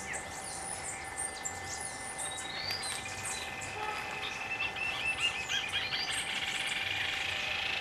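Rufous-tailed jacamar singing: a long run of rapid, high, evenly repeated notes that starts about three seconds in and grows louder, with short high chirps around it.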